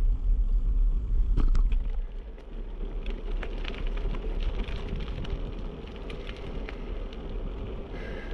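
Wind buffeting an action camera's microphone as a mountain bike rolls along a paved lane, with scattered small clicks and rattles from the bike. The low rumble is heaviest in the first two seconds, then eases.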